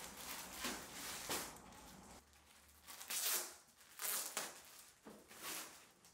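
Plastic wrapping crinkling and rustling as folded bath mats are pulled out of it and handled, in about five separate rustles.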